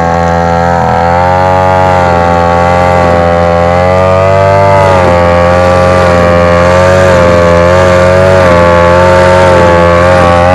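Backpack brush cutter's small engine running at high speed while cutting grass. Its pitch wavers up and down throughout.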